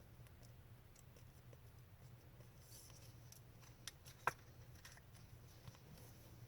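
Near silence with a few faint, short clicks of trading cards being slid and flipped by hand, the sharpest about four seconds in.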